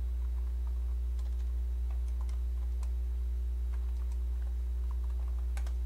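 Light, scattered typing on a computer keyboard, faint under a steady low electrical hum.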